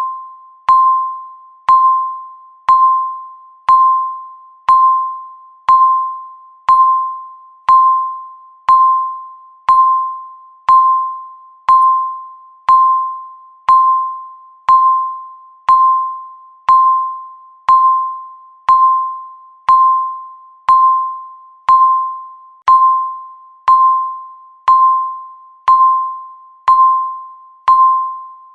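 Countdown timer beeping once a second, marking each second left: each beep is a single clear tone that starts sharply and fades away before the next.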